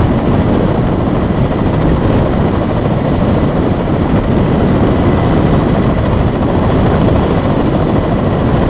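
Kamov coaxial-rotor naval helicopter hovering, a steady, loud rotor and engine noise.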